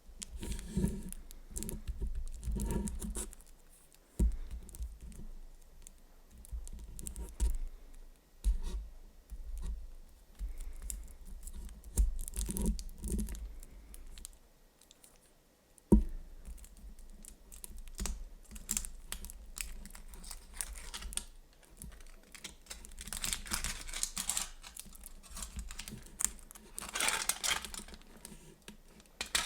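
The foil wrapper of a giant Kinder Surprise Maxi chocolate egg being handled and peeled close to the microphone: irregular crinkling, scratching and tapping clicks. There is one sharp click about halfway, and louder crinkling bursts near the end.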